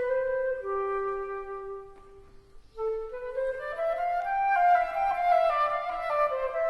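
Background music of a slow woodwind melody: held notes step down to a pause about two seconds in, then resume and climb.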